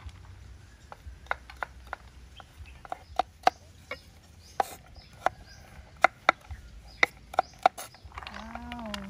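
Kitchen knife dicing carrot on a wooden cutting board: irregular sharp taps, sometimes two or three in quick succession.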